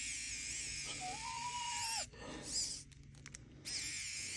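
Small electric screwdriver motor whining as it drives a tiny screw into a tassel zipper pull through webbing, straining as the screw goes in harder. It cuts off abruptly about two seconds in and starts again near the end; the screw feels as if it is stripping.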